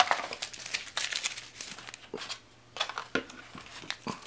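Cardboard box and plastic insert tray being handled and rummaged through: irregular crinkling and clicking, with a short pause a little past halfway.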